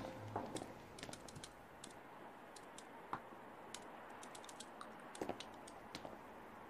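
Faint, irregular clicking of typing on a computer keyboard at a desk, in quick clusters with short gaps.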